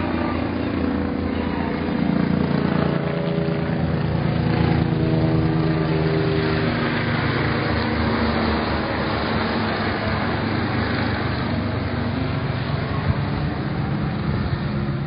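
McDonnell Douglas MD-900 Explorer helicopter running loud and steady, its engine and rotor tones shifting in pitch in the first half, with a rushing noise that swells in the middle.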